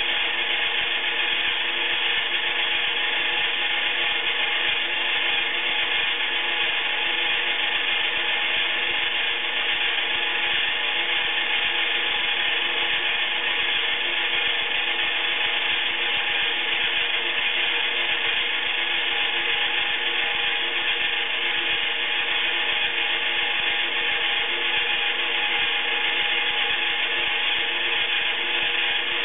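Iriza battery-powered toy washing machine running its wash: its small electric motor and plastic drum whir steadily as the drum turns the wet laundry.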